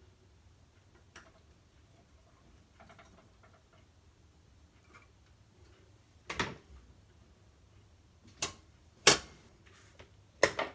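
Quiet kitchen with a few faint handling clicks, then four sharp knocks and clacks of kitchen items being set down or handled in the second half, the loudest about nine seconds in.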